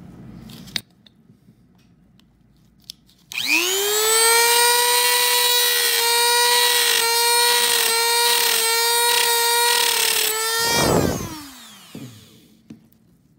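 Dremel rotary tool with a cut-off wheel spinning up about three seconds in to a steady high whine, cutting into the metal shield can over a circuit board's cellular module, its pitch dipping slightly under load. Near the end it is switched off and winds down with a falling pitch.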